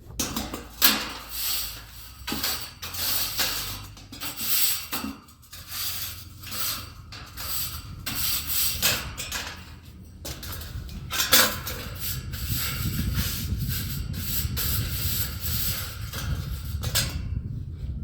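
Water from a hose spraying onto air-conditioner coils to rinse off coil cleaner. It hisses in irregular surges for the first several seconds and settles into a steadier spray from about twelve seconds in.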